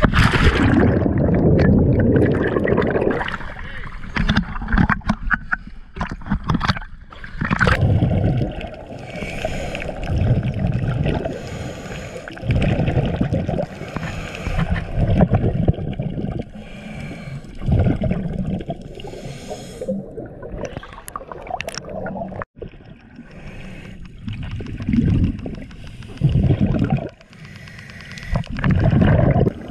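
Scuba diver's exhaled bubbles gurgling underwater in repeated bursts, each a second or two long and a couple of seconds apart, with sea water sloshing at the surface.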